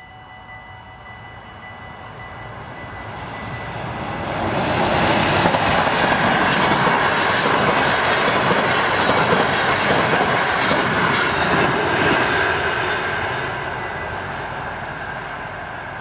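Class 186 Traxx electric locomotive hauling ICR intercity coaches passing at speed. The rush of wheels on rails swells over the first five seconds, holds for about seven, then fades as the train moves away.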